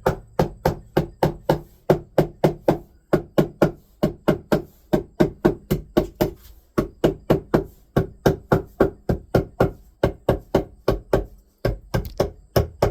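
Light hammer taps on carpet-covered wood, about three to four quick strikes a second, broken by two short pauses.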